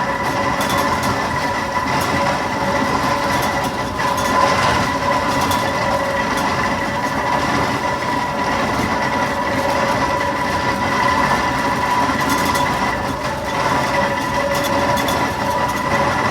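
Fowler BB1 steam ploughing engine travelling on the road: a steady, loud clatter of running gear and iron wheels, with a steady high whine through it.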